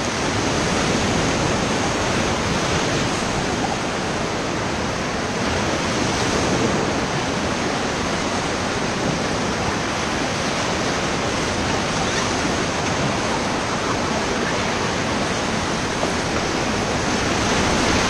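Whitewater rapids rushing steadily around an inflatable raft: a constant, dense noise of churning river water.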